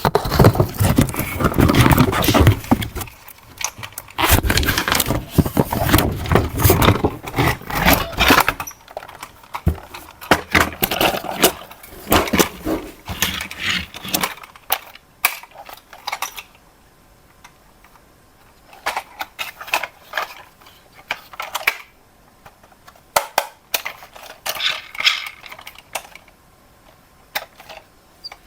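Hands handling plastic toy parts and packaging: dense rustling and scraping at first, then scattered sharp clicks and clacks of plastic pieces.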